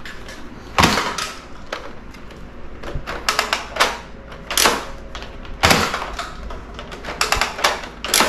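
Nerf Elite 2.0 Flip-32 dart blaster being worked by hand: a series of sharp plastic clacks and clicks at irregular intervals as the priming handle is pulled and released.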